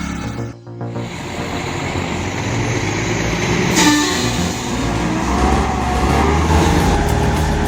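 Heavy truck's diesel engine running under load, with a sudden short hiss and squeal about four seconds in and the engine pitch slowly shifting after it.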